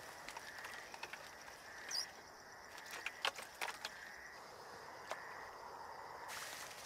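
Faint rustling and a few sharp clicks as a hooked eel is played and landed on a fishing rod, with a cluster of clicks about three seconds in and another about five seconds in. A steady faint high tone runs underneath.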